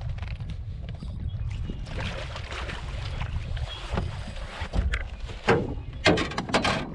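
Water slapping against the hull of a small boat drifting with its motor off, over a steady low wind rumble on the microphone. Several short, sharp sounds come near the end.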